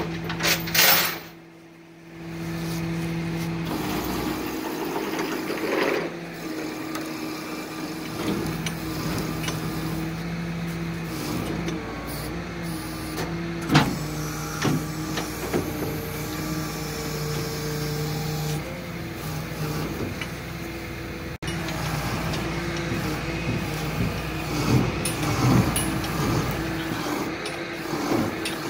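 Tilt-and-load flatbed tow truck running while the container is loaded onto its bed, its engine and hydraulics giving a steady hum that shifts a little in pitch. A short loud rush of noise comes about a second in, and a single sharp clank about halfway through.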